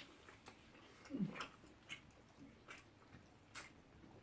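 Faint eating noises: scattered wet mouth clicks and smacks of chewing, with a short louder mouth sound about a second in.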